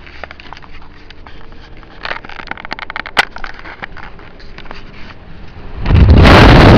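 Low road rumble of a moving car with scattered crackling clicks. About six seconds in, a sudden loud rush of wind buffeting the microphone as the camera is pushed out the open car window.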